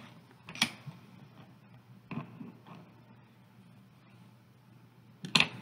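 Three short, sharp clicks from makeup being handled: a compact and brushes picked up and set down. The loudest click comes near the end, over a faint low hum.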